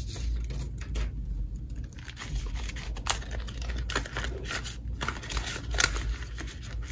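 Paper banknotes, a paper envelope and plastic binder pouches being handled: irregular rustling and crinkling as cash is slid into an envelope and a pouch.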